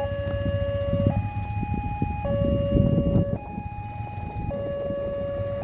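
Level-crossing warning alarm at a railway crossing with Wantech barriers, sounding an electronic two-tone signal that alternates between a low and a high tone about once a second, warning that a train is coming as the barrier arms lower. A low rumble runs underneath and is strongest about halfway through.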